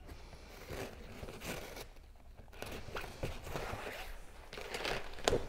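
Kayak skin fabric being stretched and sewn over the frame: irregular scratchy rasps and rustles of cloth and thread, with a sharper snap shortly before the end.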